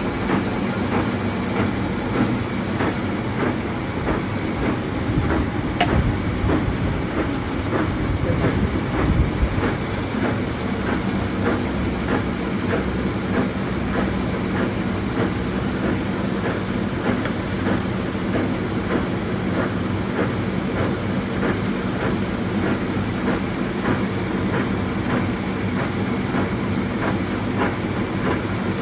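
Warner & Swasey 3-A universal saddle turret lathe running under power: steady machine noise with a regular clatter of about two to three clicks a second, and a few louder knocks early on.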